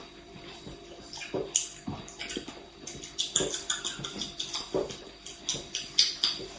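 Close-up chewing of pickle slices: irregular wet crunches and mouth clicks, several a second, getting busier after about a second.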